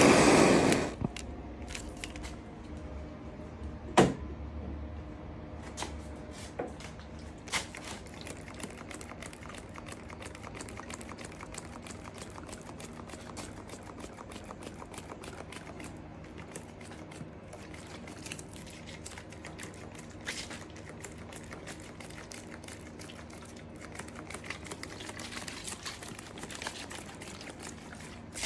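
A handheld torch flame running loudly, shut off about a second in. After it comes a low steady hum with faint scattered clicks and a few sharper taps.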